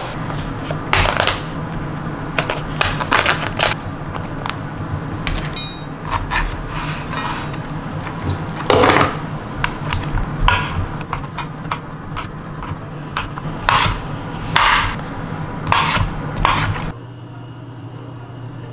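Irregular taps, knocks and scrapes of a knife working a block of tofu on a cutting board, over the steady hum of a kitchen range hood fan. The hum drops away near the end.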